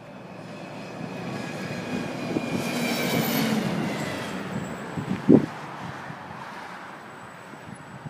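A bus passing on the road: its engine and road noise build to a peak about three seconds in and then fade, with a high whine riding on top. A single sharp thump about five seconds in.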